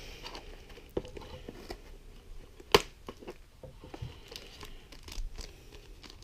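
Plastic packaging being handled: light crinkling and rustling with scattered small clicks, and one sharp, louder click a little past halfway.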